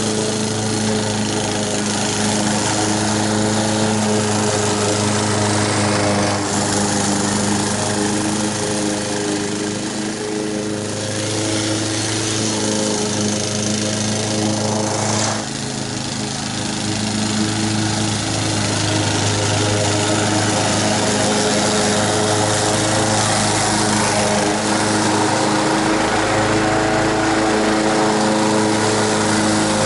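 Honda HR194 push mower's engine running steadily at cutting speed while mowing grass, with a brief dip in level about halfway through.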